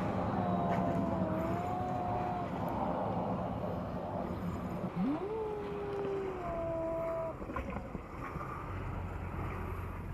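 Stray cats yowling in a standoff over a fish: long, drawn-out warning calls, one slowly falling in pitch in the first couple of seconds, another rising sharply about five seconds in and then sliding down. A low steady hum runs underneath.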